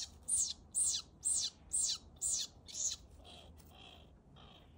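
A string of about eight high, sharply falling squeal-like animal calls, roughly two a second, then a few fainter, shorter calls near the end.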